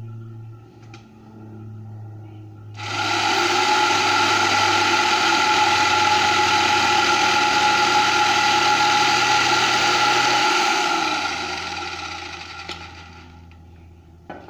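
Netto electric jigsaw switched on about three seconds in and sawing through a thin wooden slat: a steady motor whine over the rasp of the blade, fading away as the cut ends a little before the close.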